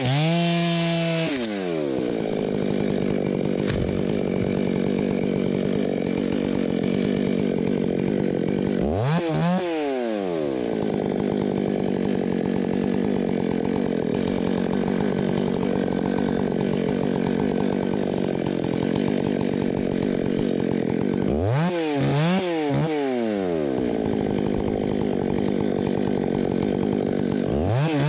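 Stihl MS661 two-stroke chainsaw coming off full throttle out of a cut at the base of the tree, then idling steadily. It is blipped once about a third of the way in, twice in quick succession near the end, and revs up again right at the end.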